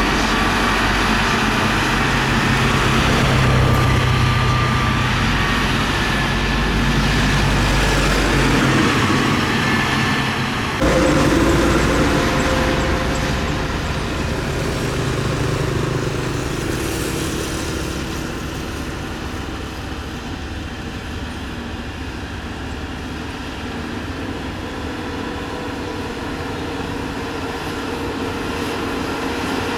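Motor grader's diesel engine running steadily at work, a low drone. The sound changes abruptly about eleven seconds in, then grows gradually quieter.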